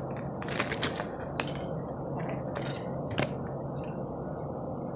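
Clear plastic packaging crinkling as it is handled and pulled open, a scatter of irregular sharp crackles, most of them in the first second and a half.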